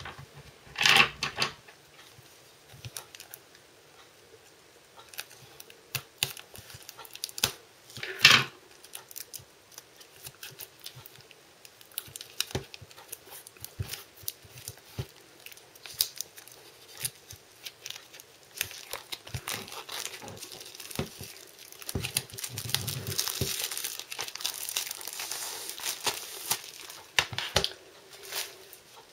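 Cellophane shrink-wrap being picked at, torn and peeled off a plastic Blu-ray case. Scattered crackles and crinkles run throughout, with two sharper, louder snaps about one and eight seconds in. A longer stretch of steady crinkling comes near the end as the wrap comes away.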